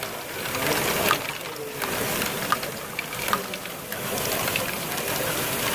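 LEGO Great Ball Contraption running: plastic balls rattling and clicking through the modules and along a chain-lift conveyor, a continuous clatter with many small irregular clicks.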